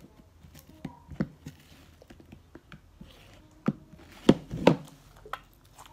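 Handling noise: scattered light taps and knocks of objects being picked up and moved, with a few louder thumps about four seconds in.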